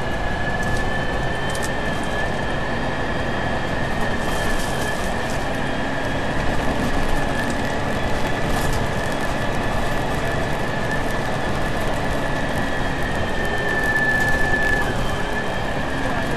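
Transbus Trident III double-decker bus under way, heard close to its rear axle: the Cummins ISMe 10.8-litre six-cylinder diesel and road noise make a steady rumble, under a high steady whine from the drivetrain. The whine drifts slightly in pitch with road speed and swells briefly near the end.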